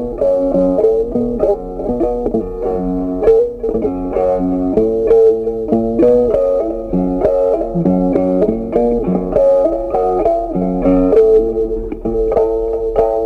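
Background music: a plucked guitar melody with a bass line, notes changing steadily.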